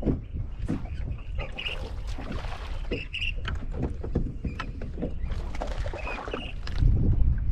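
Small fishing boat on the water: scattered knocks and clicks over a steady low rumble.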